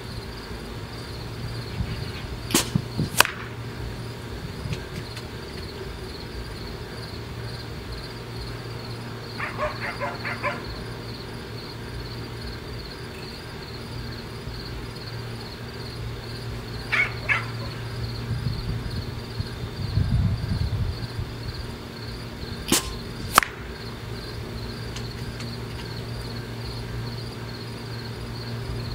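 A Benjamin Marauder .25 pre-charged pneumatic air rifle fires twice, about twenty seconds apart. Each shot is a pair of sharp cracks about half a second apart. Short runs of clicks fall between the shots, over a steady chorus of insects and a low hum.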